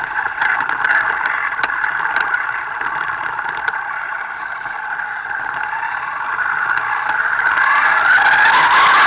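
Thunder Tiger 1/8-scale RC buggy's motor running at speed, close to the car-mounted camera: a high, steady buzz that eases off around the middle and climbs in pitch again near the end, with scattered sharp clicks over it.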